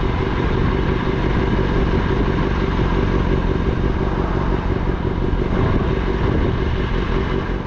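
A vehicle engine running steadily and loudly, with a rapid even pulse.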